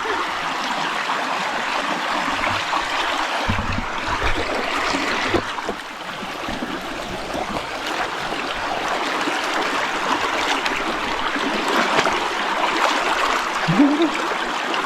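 River water flowing steadily, a continuous rushing and trickling of the current.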